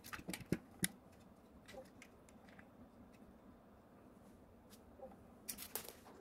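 Faint clicks and taps of a small metal-and-plastic 3D printer module and its parts being handled. A few quick clicks come in the first second, then a quiet stretch, then another brief run of clicks near the end.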